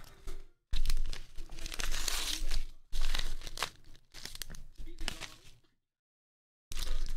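Yellow kraft-paper mailer envelope being torn open by hand, in several rips with crinkling paper. The sound cuts out abruptly for about a second near the end, then resumes.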